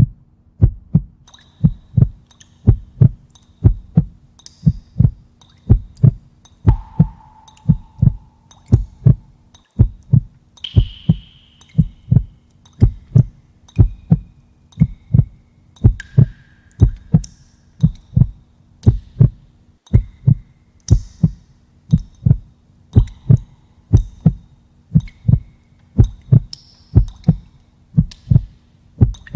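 Heartbeat sound effect: a steady double thump, lub-dub, repeating evenly about once a second over a faint hum.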